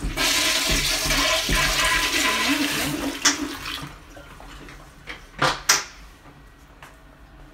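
Japanese squat toilet flushed by a sensor-triggered flush valve: water rushes loudly for about four seconds, then dies away. A few sharp knocks follow.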